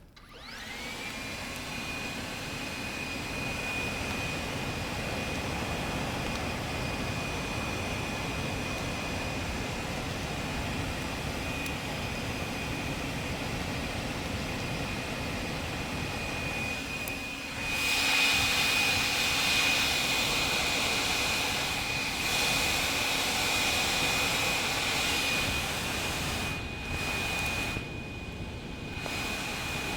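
Blower spinning up and then running steadily with a high whine and rushing air, forcing air into a smouldering brush pile to make it burn hotter. It gets louder for several seconds past the middle and drops briefly twice near the end.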